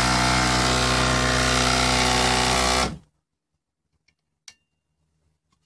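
Electric motor spinning a homemade Gerard Morin pump generator: a steady mechanical hum and whir that stops abruptly about three seconds in. A faint click follows in the silence.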